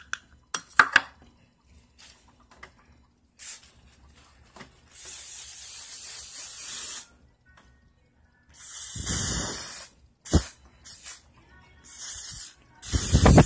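Hairspray sprayed in a series of hissing bursts, about seven in all. The longest lasts about two seconds; the later ones are shorter and louder, some with a rumble of air hitting the microphone.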